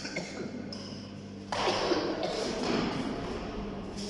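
Sounds of a badminton rally in a hall: light taps and thuds of racket, shuttlecock and footwork over a steady low hum, with a louder rush of noise starting about a second and a half in.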